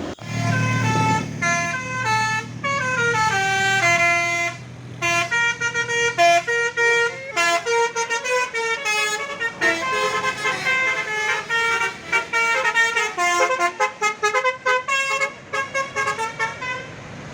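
A passing bus's telolet basuri musical air horn playing a fast tune of short notes stepping up and down, with the bus engine running under the first few seconds. The tune stops near the end.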